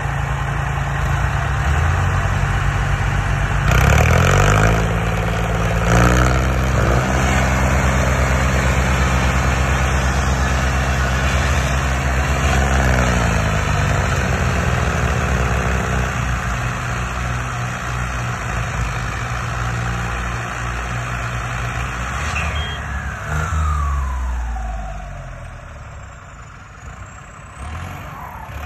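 Tractor diesel engine revving up twice early on and held at high revs as if under load, then easing back about halfway through and dropping lower near the end. A thin falling whine sounds late on as the revs come down.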